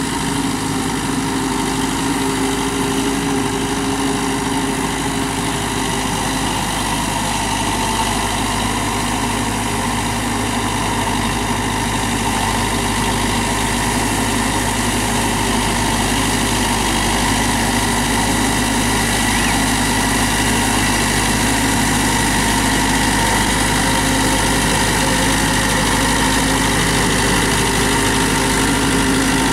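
TAFE 5900 DI tractor's diesel engine running steadily under load, working a rotary tiller through wet, muddy soil. The drone holds an even pitch and grows slightly louder in the second half.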